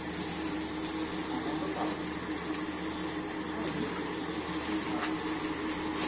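Steady hum with one constant tone under a low even hiss, with a few faint clicks and rustles of hands handling plastic bags and food packets.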